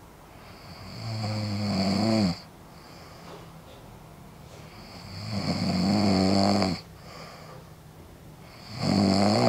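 A man snoring loudly in his sleep: three long snores about four seconds apart, each growing louder and then cutting off sharply. The snoring sets in once his anti-snoring mouthguard has slipped out of his mouth.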